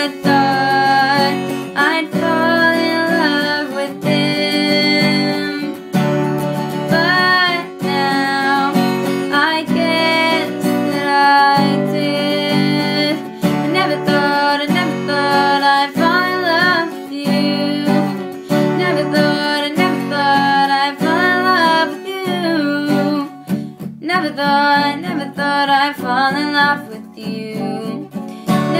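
A girl singing her own song while strumming an acoustic guitar, the voice in short sung phrases over steady guitar chords.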